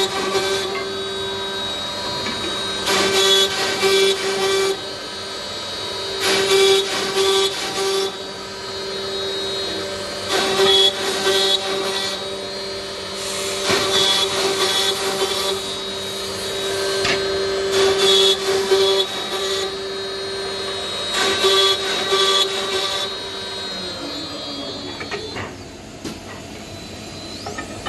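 Seven-spindle Woodmaster CNC mortising machine running, its spindles giving a steady whine, with louder cutting noise in passages of one to two seconds every few seconds as the bits work the wood. A little after three-quarters of the way through, the whine drops away as the spindles spin down.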